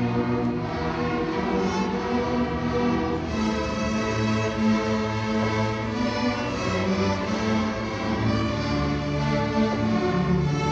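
A large school string orchestra of violins, violas, cellos and basses playing held, sustained chords that change from note to note.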